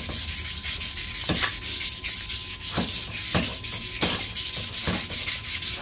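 Fine 400-grit sandpaper rubbed by hand in quick, even back-and-forth strokes over the steel band surface of a 4L60-E reverse drum. It is a light finishing pass that takes the glaze off the drum so the band won't slip.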